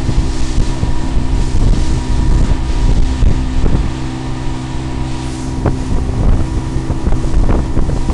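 Evinrude outboard motor running steadily at speed while towing, a constant low drone, mixed with the rush of the wake and wind buffeting the microphone.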